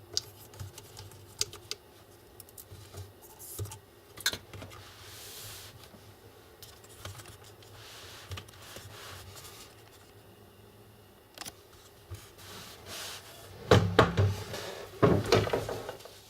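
Small clicks, taps and brief scraping of laptop parts being handled and fitted. A burst of louder knocks and rattles follows near the end.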